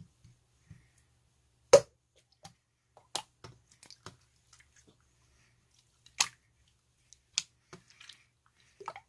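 Sharp clicks or taps, scattered a second or more apart and the loudest about two seconds in, over a faint steady low hum.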